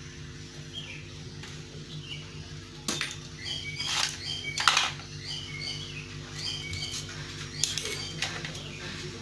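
Small birds chirping in short, high calls, with a few sharp knocks or rustles between about three and five seconds in and again near the end, over a steady low hum.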